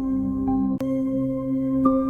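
Singing bowls ringing with long, layered tones. A bowl is struck about a second in and again near the end, each strike adding a fresh higher tone over the ones still sounding.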